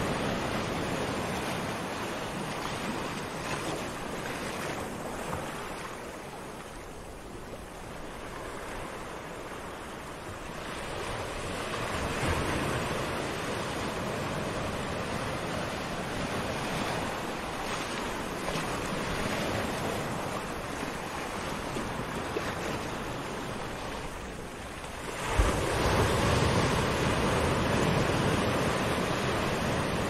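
Gentle surf on a sandy beach: small waves breaking and washing up the shore, the wash swelling and easing, with a louder wave breaking sharply a few seconds before the end.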